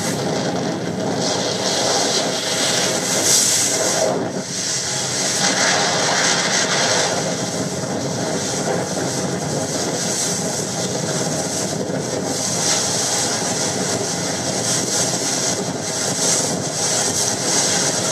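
Boat underway in choppy water: its engine runs steadily under loud wind and rushing water on the microphone.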